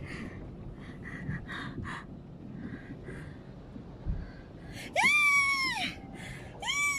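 A person cries out in dismay: a high wailing cry about five seconds in and a shorter one near the end, over a faint background hiss.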